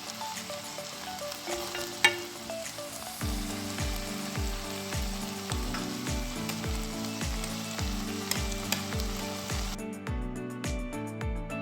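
Pork frying in a pan: a steady sizzle with scattered clicks of a utensil stirring, the sizzle stopping suddenly near the end. About three seconds in, background music with a steady kick-drum beat comes in.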